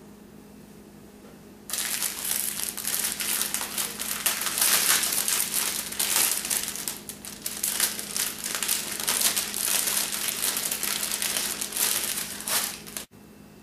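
Clear plastic bag crinkling and crackling as it is handled and pulled open by hand to get at a frosted cookie. It starts suddenly about two seconds in, goes on loudly and unevenly, and cuts off abruptly near the end.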